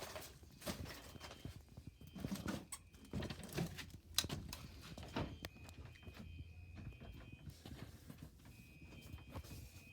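Scattered footsteps and knocks on a hard floor, with a faint high electronic tone sounding on and off in the background from the activated fire alarm system.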